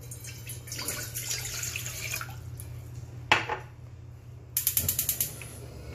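Water poured from a ceramic mug into an empty stainless-steel saucepan, splashing for about two seconds. Then comes a single sharp knock, and near the end a quick run of clicks.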